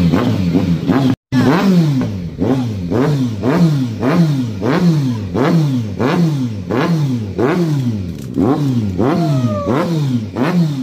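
Kawasaki Z900's inline-four engine being revved in repeated quick throttle blips, about three every two seconds. Each blip rises sharply and falls back, through a newly fitted slip-on exhaust with the catalytic converter deleted. The sound cuts out briefly about a second in.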